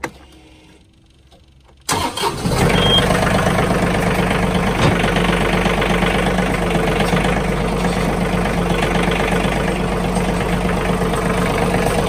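A John Deere compact tractor's diesel engine starts about two seconds in, after a brief crank, and settles into a steady run.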